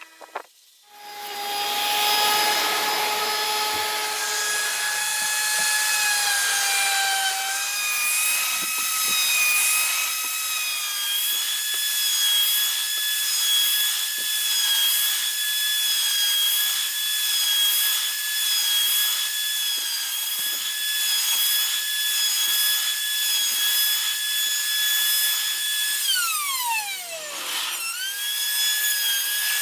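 A homemade wood router starts about a second in and runs at a high whine while cutting into a log, with the rasp of the bit in the wood. Near the end its pitch drops sharply and then recovers.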